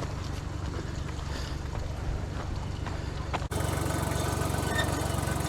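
Engine idling steadily, with a few light footstep-like clicks over it; the idle jumps abruptly louder about three and a half seconds in.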